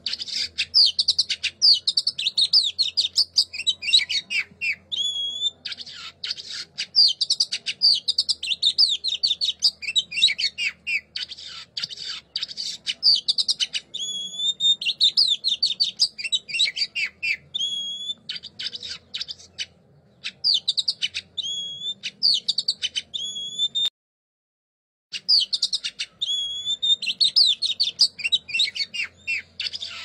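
Songbird song: a fast, unbroken stream of rapid chattering and twittering notes, with short rising whistles repeated every couple of seconds. The song cuts out completely for about a second near the end, then resumes.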